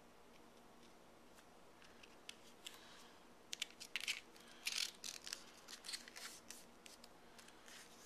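A square of origami paper being folded and its new crease pressed and run down with the fingers: a quick series of crisp paper rustles and scrapes, starting about two seconds in and busiest in the middle before easing off.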